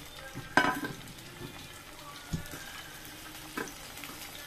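Chopped tomatoes, green chillies and cashews sizzling gently in oil in a kadhai, with a sharp clink about half a second in and two softer knocks later.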